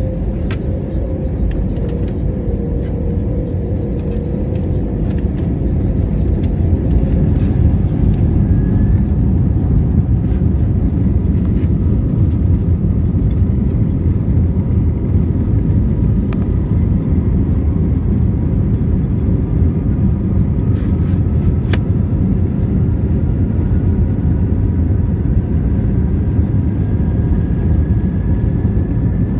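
Airbus A320neo cabin noise while the jet rolls onto the runway: a steady low rumble of engines and wheels that grows louder about six seconds in, with a faint whine slowly rising in pitch through the second half.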